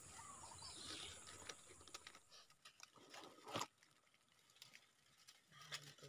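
Near silence in forest: a faint steady high hiss with a few soft clicks and chirps, and a single sharp knock about three and a half seconds in.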